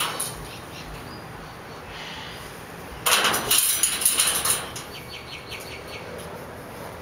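Blue-and-gold macaw scrambling on an aviary's wire mesh and door frame: a loud rattling clatter for about a second and a half midway, then a quick run of about six light, evenly spaced taps.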